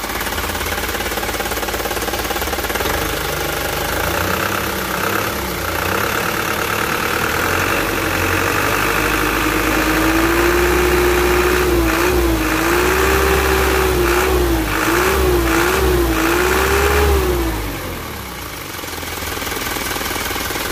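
Isuzu Elf truck's four-cylinder turbodiesel engine, its injection pump tuned, running at idle and then revved: the revs climb a few seconds in, are held high with repeated blips of the throttle from about halfway through, and drop back to idle near the end. A 'kik-kik' squeak comes from the fan belt.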